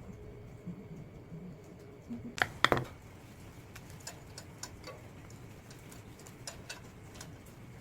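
Small metal parts and tools being handled. A quick cluster of sharp clicks about two and a half seconds in, then scattered light ticks and taps.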